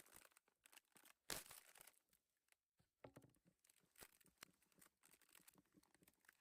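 Faint, irregular crinkling and tearing of packaging being handled, with small clicks and one louder rustle about a second and a half in.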